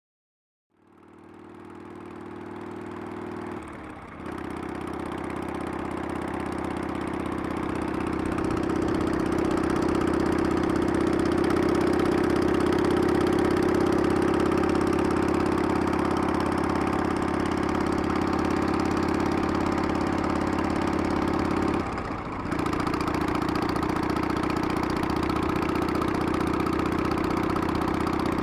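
Harley-Davidson Sportster air-cooled V-twin engine running steadily. It fades in about a second in, with two brief dips in level, about four seconds in and again about three-quarters of the way through.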